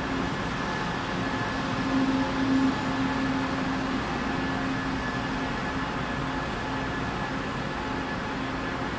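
Steady mechanical hum of a train at the platform, with a low drone that swells briefly about two seconds in.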